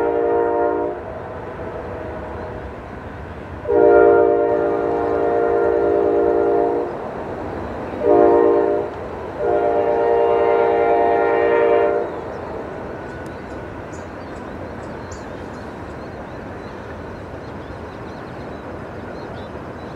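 Diesel freight locomotive's multi-chime air horn sounding the grade-crossing signal: the end of one long blast, then long, short, long. After that the train rolls past with a steady rumble.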